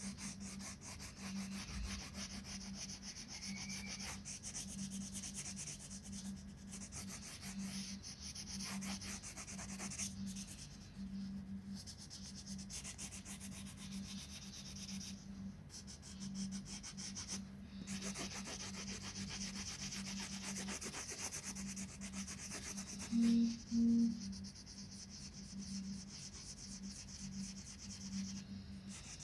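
Wax crayon scribbling on a colouring book page: quick back-and-forth shading strokes, with a few brief pauses. Near the end, two short low tones sound about half a second apart, louder than the scribbling.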